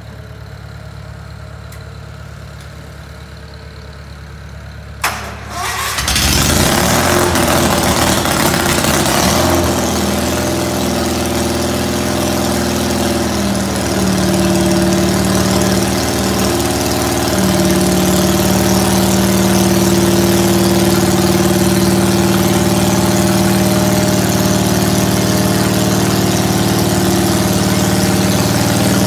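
Custom IH Cub Cadet 782 crawler tractor engine. It runs low and quiet at first; after a sharp click about five seconds in, it comes up loud about a second later. It is rough for a few seconds, then settles into a steady run with small changes in pitch as the crawler drives off.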